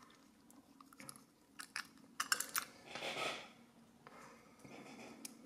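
Handling sounds from a disassembled lock cylinder and its small parts: a few sharp clicks of metal parts about two seconds in, then a short rustling scrape.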